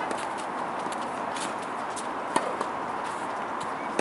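Tennis ball hit by rackets and bouncing on a hard court during a rally: a sharp pock about two and a half seconds in and another at the very end, with fainter ticks between, over a steady background hiss.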